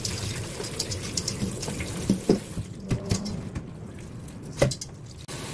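Kitchen tap water running into a stainless steel colander of shredded cucumber in a metal sink as it is rinsed by hand. The water stops about two and a half seconds in, and a few knocks follow, the loudest near the end.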